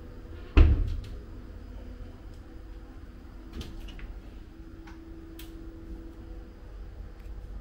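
Wooden wardrobe door pulled open by its handle: one loud thud about half a second in, then a few faint clicks.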